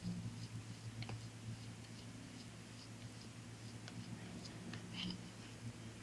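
Faint, scattered clicks and light taps of a sticky honey, lemon and black-seed-oil mixture being gathered and worked together in a bowl, a little busier about five seconds in, over a low steady hum.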